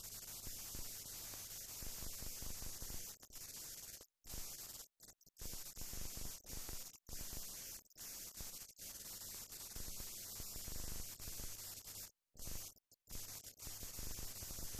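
Steady hiss and crackle of film-transfer noise with a low hum, cutting out suddenly to silence several times; no aircraft engine is heard.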